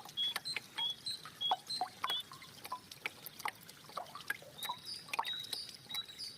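Water trickling and dripping in many small, quick plinks. A high, short chirp repeats about twice a second over the water for the first two seconds, and longer high notes come back in the second half.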